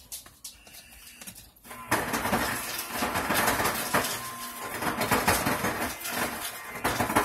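A metal knife scraping and chipping at frozen ice cream inside a plastic toy ice cream maker's drum. It starts about two seconds in as loud, uneven scraping that goes on in quick strokes.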